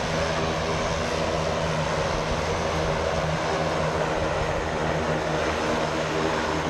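Engine and propeller of a small single-engine high-wing jump plane running steadily on the ground, a loud unbroken drone heard from just under the wing.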